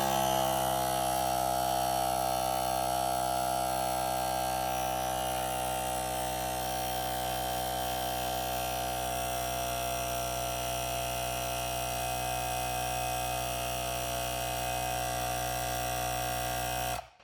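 Cordless portable tire inflator's small compressor running steadily while it pumps up a car tire, a buzzing hum. It cuts off abruptly near the end: the auto shut-off stopping it at the preset pressure.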